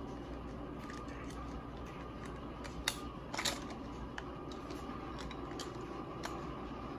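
Faint clicks and small knocks of plastic toy parts being handled, with one sharper click about three seconds in and a short rustle just after, over a steady low hum.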